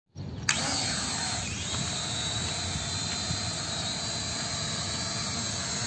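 Propellers of three small E88 camera quadcopters spinning up together about half a second in, rising in pitch as the drones lift off, then a steady buzzing whine as they hover.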